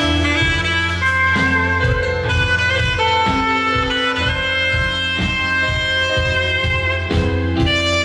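Saxophone playing a slow melody with long held notes, accompanied by a steady bass line and drums.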